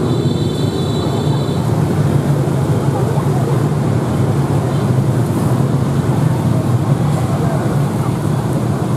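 Steady street traffic noise with a low engine hum. A brief high-pitched tone sounds in the first second or two.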